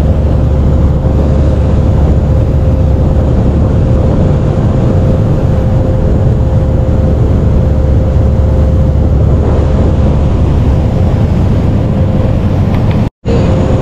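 Steady low rumble of a motor yacht underway, its engines running with the rush of wake water behind it and a constant hum over it. The sound drops out for a split second near the end.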